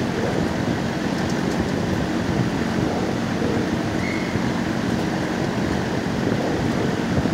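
Steady, loud background rumble of a shelter kennel room, with no single event standing out.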